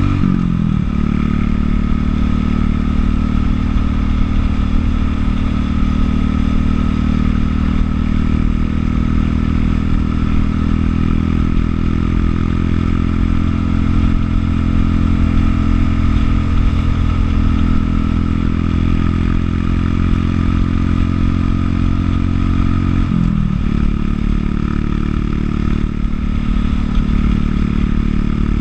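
Buell motorcycle engine running steadily under way, heard from the rider's seat. The engine note drops sharply twice, once near the start and again about four-fifths of the way through.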